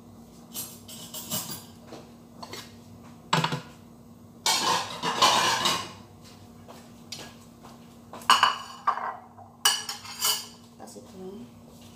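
Dishes and cutlery clinking and knocking as they are handled on a kitchen counter, in scattered knocks, with a longer, louder stretch of clatter about halfway through.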